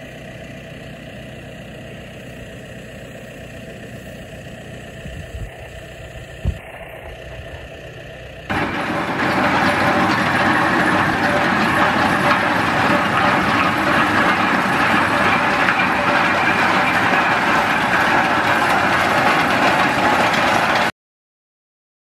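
A John Deere tractor working a roller-crimper in cereal rye: first a steady engine note with a few low thumps, then, about eight seconds in, a much louder dense noise of the roller-crimper running close by as it flattens and crimps the standing rye. It cuts off suddenly near the end.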